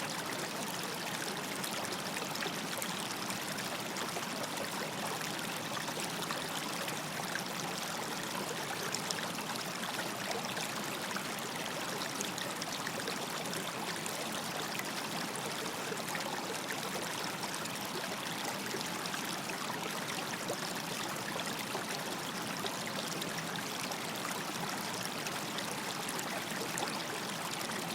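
River water flowing steadily over stones, a continuous rushing and trickling.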